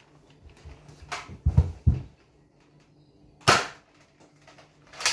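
Toy foam-dart blaster handled with a few low knocks, then firing: a sharp pop about three and a half seconds in and another two near the end.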